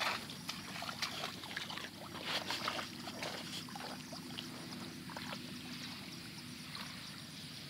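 Irregular splashing and sloshing of shallow muddy water as hands grope inside a bamboo plunge basket pressed into a flooded paddy, the splashes thickest a couple of seconds in.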